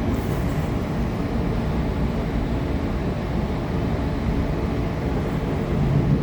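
Steady low rumble of a Tangara electric multiple unit running along the track, heard from inside the carriage, briefly louder near the end.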